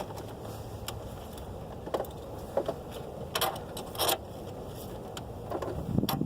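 Scattered metallic clicks and clinks of hand tools and battery hardware during a car battery install, about one a second, with a louder clank near the end.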